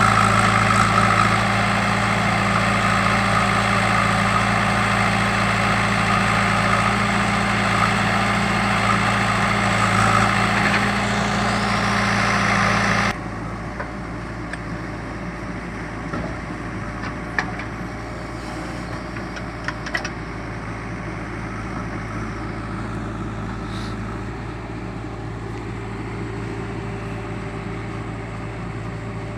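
JCB backhoe loader's diesel engine running steadily. About thirteen seconds in, the sound drops suddenly to a lower level and the engine carries on more quietly, with a few faint clicks.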